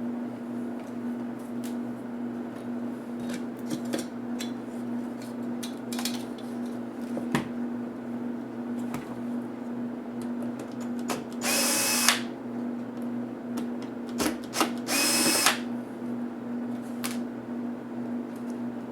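Small electric screwdriver whirring in two short runs, driving laptop screws, amid scattered clicks of screws and plastic parts being handled, over a steady low hum.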